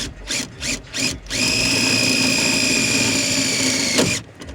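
Power drill driving a metal screw: three short trigger bursts, then the motor runs steadily for about three seconds, its whine sagging slightly in pitch, and stops with a click near the end.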